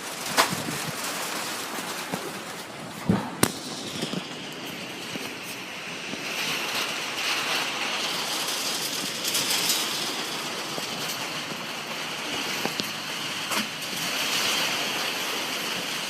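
A few sharp cracks of hailstones striking the car over the steady hiss of the storm, which grows fuller from about four seconds in.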